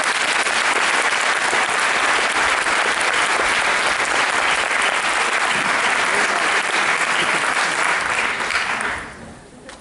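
Audience applauding steadily, dying away about nine seconds in.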